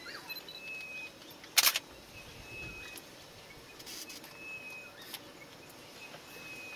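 Faint bush ambience with a bird giving short, steady high whistles over and over, and one brief loud bump about a second and a half in.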